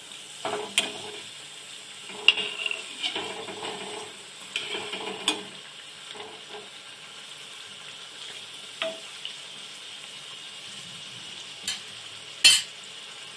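Gujiya deep-frying in hot oil in a kadhai, a steady sizzle. A perforated metal skimmer scrapes and clinks against the pan now and then as the pastries are turned, with the loudest knock near the end.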